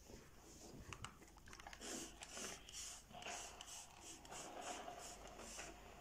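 Faint rustling with soft, scattered clicks and taps from a steam iron being handled and moved onto a T-shirt on an ironing board.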